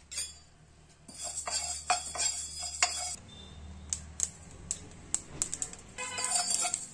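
Sesame and fenugreek seeds dry-roasting in a nonstick pan, giving sharp, scattered pops and ticks that come more often in the second half, with a steel ladle stirring against the pan near the end.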